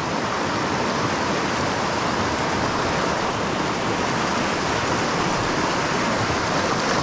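Steady rushing of a small mountain creek's flowing water.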